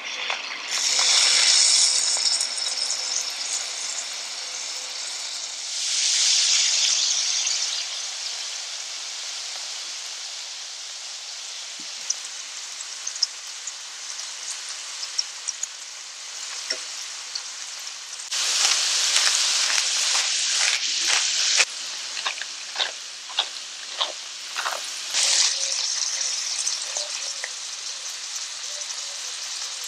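Peeled shrimp sizzling in hot fat in a stainless steel frying pan, with a steady hiss that surges louder several times as more shrimp go in. From about twelve seconds in, sharp ticks and pops cut through the sizzle.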